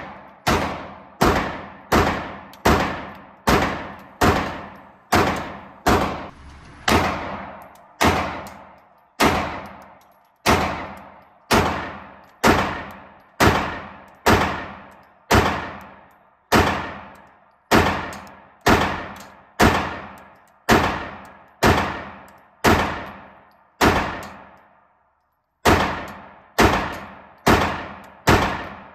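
Handgun fired in a long steady string at an indoor range, roughly one shot a second, each report followed by a ringing echo. A short pause comes near the end, then a few more shots in quick succession.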